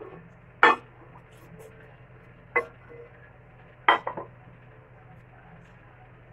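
Metal cooking pans knocking on the stovetop: three sharp clanks about two seconds apart, the last followed by two quick clinks, over a low steady hum.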